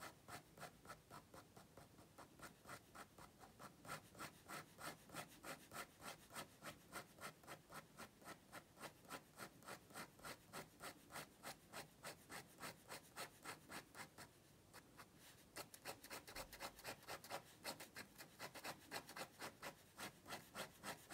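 Fine-tip ink pen scratching on paper in quick, short hatching strokes, about three a second, with a brief pause about fourteen seconds in. Faint.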